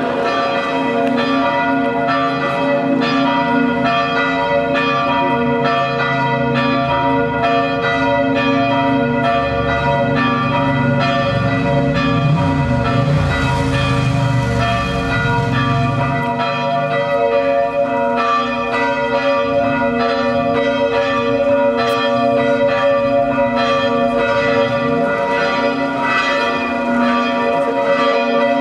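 Church bells ringing in a continuous peal, their strokes overlapping in a steady rhythm. A car passes by about halfway through.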